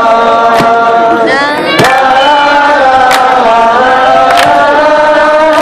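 Many voices singing together in a live band performance, mostly wordless, held notes that step to a new pitch every second or so. A sharp percussive hit lands about every second and a quarter.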